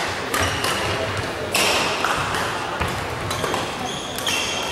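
Badminton rally: rackets striking the shuttlecock with several sharp smacks, and court shoes giving short high squeaks on the hall floor as the players move.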